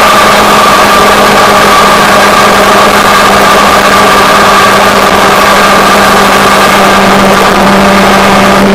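Motorcycle engine running at a steady cruising speed, its pitch holding level throughout.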